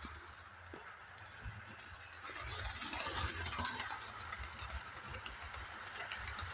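A model railway train running along the track, its wheels rattling and rumbling on the rails, growing louder a couple of seconds in and easing off again as it passes.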